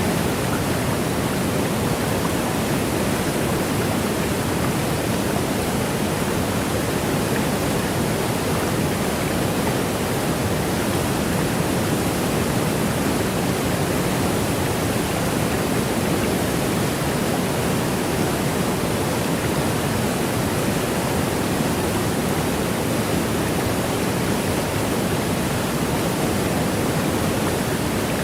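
Waterfall rushing: a steady, unbroken wash of water noise, fullest in the low middle, with no rises, falls or separate splashes.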